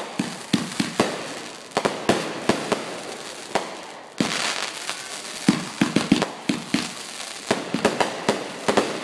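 Aerial fireworks bursting: an irregular string of sharp bangs, with a hissing rush about four seconds in and a quicker run of bangs through the second half.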